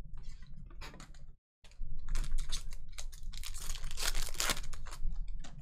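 Trading cards and foil pack wrappers handled on a tabletop: a run of quick clicks and crinkles, with a longer, denser rip about four seconds in, typical of a foil pack being torn open.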